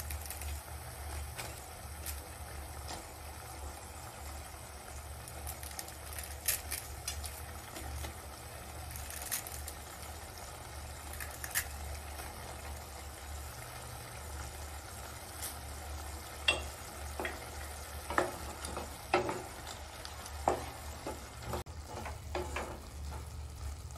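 Boiling vegetable broth hissing steadily in a pot while dry instant noodle blocks are crumbled into it, with scattered sharp crackles and taps. The taps come more often in the last third, and near the end a wooden spatula stirs the noodles in the pot.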